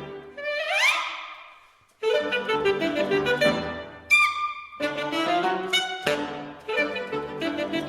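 Saxophone, violin and piano playing a fragmented avant-garde chamber passage: a rising glissando about half a second in dies away to a moment of silence, then the trio comes back in with short clustered notes. Around four seconds a sharp, held high note cuts off suddenly before the playing resumes.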